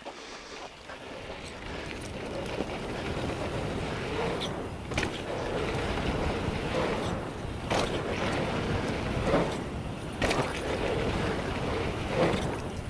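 Mountain bike riding fast down a dirt trail: a rushing of wind and tyre noise that builds over the first couple of seconds, with several sharp knocks from the bike hitting bumps.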